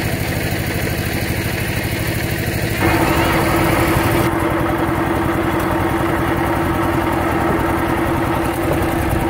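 Two-wheel walking tractor's single-cylinder diesel engine running steadily with an even, rapid chugging while driving along the road. About three seconds in it becomes a little louder, with a stronger steady hum.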